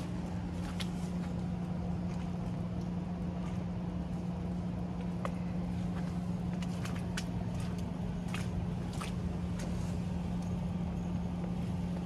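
Outdoor street ambience under a steady low hum, with scattered sharp clicks and taps of footsteps, more of them about halfway through.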